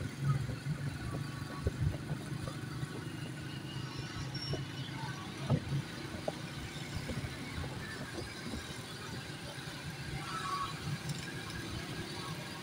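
Road traffic heard from a moving vehicle: a steady low engine and road rumble, with cars and motorbikes passing close by.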